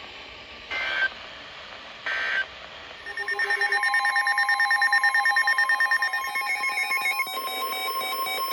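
Emergency Alert System broadcast tones: two short bursts of digital data screech, then from about three seconds in a loud electronic alert tone that pulses rapidly, its pattern changing about seven seconds in.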